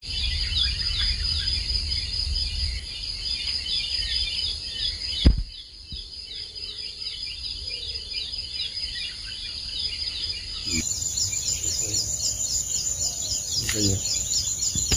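Outdoor ambience of insects and birds: a steady high buzz of rapid repeated chirps over a low rumble. There is one sharp knock about five seconds in, and the chirping shifts higher in pitch about eleven seconds in.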